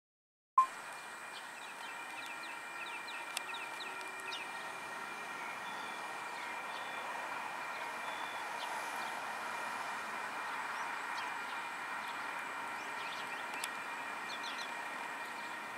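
DFB-class diesel locomotive approaching along the track, a steady sound with several steady high tones that grows a little louder through the middle. Birds chirp over it.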